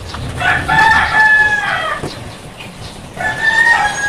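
Rooster crowing twice: a long crow that holds its pitch and drops at the end, starting about half a second in, and a second crow starting near the end.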